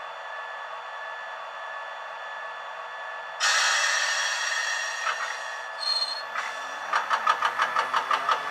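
1959 London Underground tube stock sounds played by a model train's DCC sound decoder through its small speaker: a steady hum at standstill, then a sudden loud hiss of air about three and a half seconds in. After a brief high beep, the motor whine rises in pitch with rapid regular clicking as the train pulls away.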